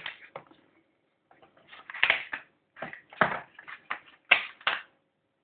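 A metal steelbook case and its packaging being handled: a series of sharp clicks and knocks with some rustling, the loudest strokes coming near the middle and about two-thirds of the way in.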